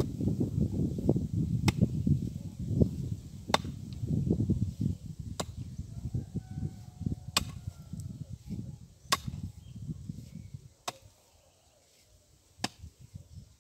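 Pickaxe striking a red clay bank in a slow, steady rhythm, seven sharp hits about two seconds apart. A low rumbling noise runs under the first strikes and fades out about eleven seconds in.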